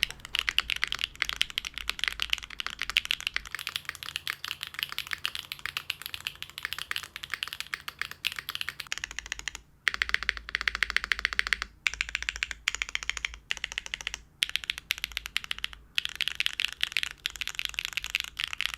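Fast typing on a foamless Neo 75 mechanical keyboard fitted with HMX Snowfall tactile switches (long-pole stem, PC top and nylon bottom housing): a dense run of keystroke clicks, broken by a few brief pauses in the second half.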